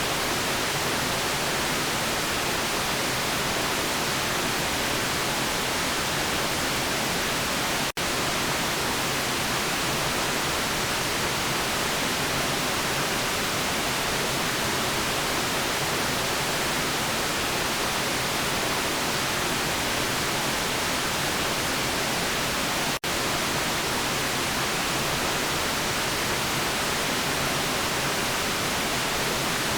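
Steady artificial white noise: an even hiss across all pitches with no tones or events in it. It drops out for an instant twice, about a quarter of the way in and again about three quarters through.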